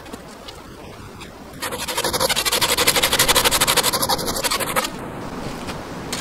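Hand pruning saw cutting off a branch stub from a log, in quick, even strokes that start about one and a half seconds in and stop near the five-second mark.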